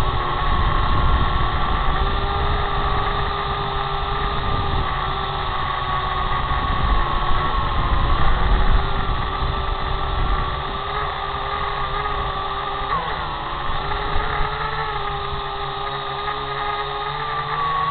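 Small quadcopter drone's motors whining steadily, their pitch wavering a little as it manoeuvres, over a low rumble of propeller wash on its microphone.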